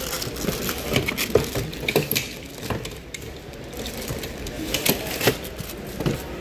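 Hard-shell plastic suitcases being handled: a string of sharp clicks and knocks from the handles and shells, with crinkling of the plastic wrap on the carry handle.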